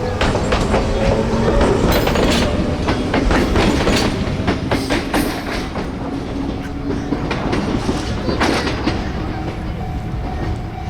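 Echizen Railway train running through the station, its wheels clicking over rail joints with a steady rumble. The clatter is densest a couple of seconds in, and a faint motor whine rises near the start.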